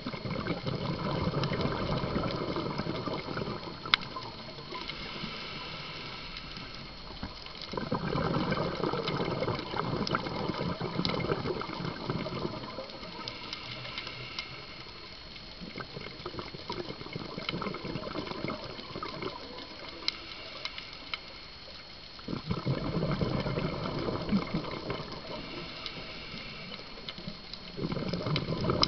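Scuba regulator breathing underwater: several long bursts of exhaled bubbles, each lasting a few seconds, with a quieter steady hiss between them and scattered sharp clicks.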